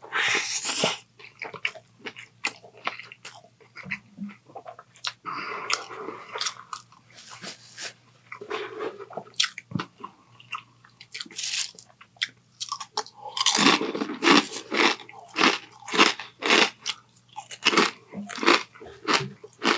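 Close-up eating sounds: a bite taken out of a Togo's Triple Dip sandwich, then chewing with crunchy, wet mouth noises. The chewing strokes grow louder and come steadily, about two a second, from about two-thirds of the way through.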